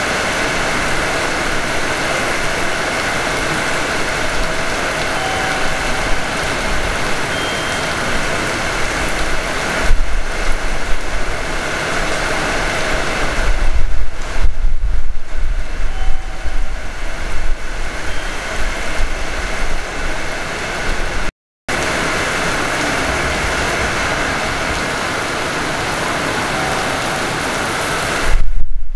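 Hanshin 5500 series electric train heard from the front cab: steady mechanical noise with faint steady tones, and heavier low rumbles a third of the way in, around the middle and near the end. The sound drops out completely for a moment about three-quarters of the way through.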